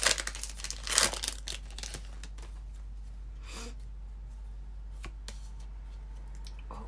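Pokémon booster pack's foil wrapper crinkling and tearing and the cards being handled, loudest in a burst of rustling in the first two seconds, then a few light clicks and rustles.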